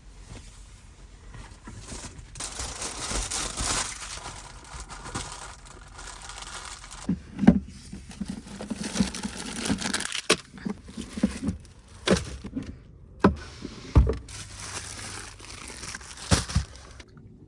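Plastic food packaging crinkling and tearing as it is handled and opened, with several sharp clicks and knocks in between.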